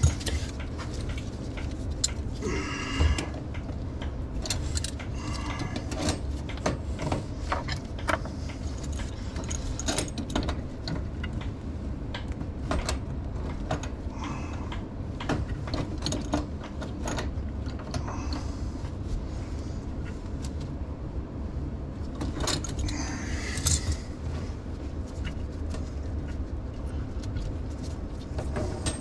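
Gloved hands working on plastic ABS drain fittings under a sink: scattered clicks and knocks with short scraping, rustling passages, over a steady low hum.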